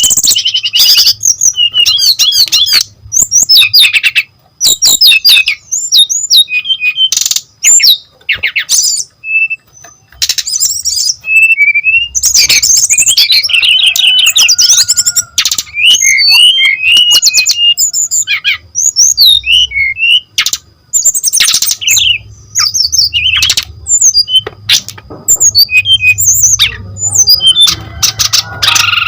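Brown-chested jungle flycatcher (sikatan rimba dada coklat) singing a long, fast, varied song of high whistles, chips and trills. The phrases come in rapid runs separated by short pauses.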